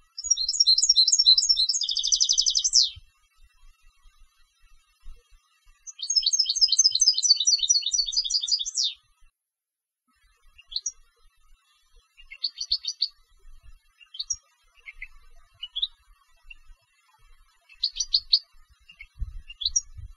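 European goldfinch of competition song stock singing: two long phrases of rapid repeated high notes, each about three seconds, the first closing in a fast dense trill, followed by scattered short calls and note fragments.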